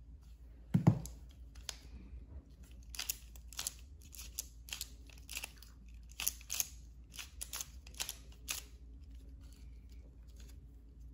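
Qiyi MS pyraminx being turned through a scramble: a run of short plastic clacks, two or three a second, after one louder thump about a second in.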